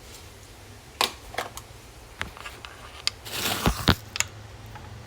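Scattered clicks and light knocks of kitchen items being handled, with a short rustle and two dull thumps about three and a half seconds in, as she gets ready to pour milk into the pasta bowl.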